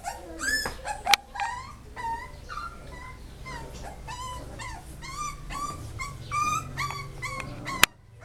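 A litter of Beagle puppies whimpering and yipping, a steady run of short, high-pitched cries that rise and fall. A sharp click comes about a second in and another near the end.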